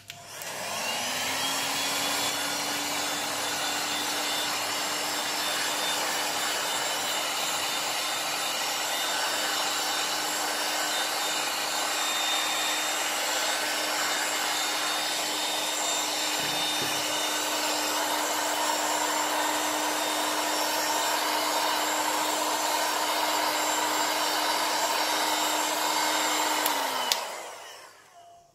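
Handheld hot air gun switched on with a click, its fan spinning up to a steady rush of blowing air over a motor hum, heating a phone's glued glass back to soften the adhesive. Near the end the hum drops in pitch as it is switched off and winds down.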